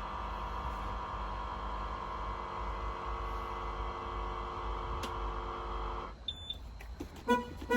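School bus horn held in one long, steady blast that cuts off suddenly about six seconds in. A few clicks and short tones follow near the end.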